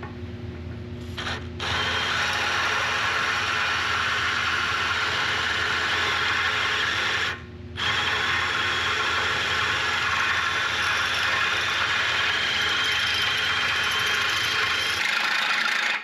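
Electric drill boring through the steel skid of a skid-steer blade, the bit grinding steadily, stopping briefly about halfway through, then running on until it cuts off at the end. The drill is in its high-speed gear, which lacks the power for the cut.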